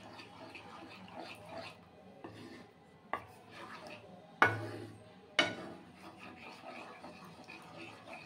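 Spatula stirring a thick yogurt gravy in a nonstick pan, with soft, continuous scraping. There are three sharp knocks of the spatula against the pan, about three, four and a half and five and a half seconds in; the middle one is the loudest.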